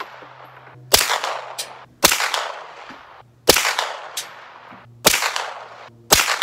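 Five suppressed shots from a 10.5-inch Foxtrot Mike 9mm AR-15 upper, fired about a second to a second and a half apart, each trailing off in an echo. With 115-grain Federal full metal jacket ammunition the suppressor is not exactly quiet.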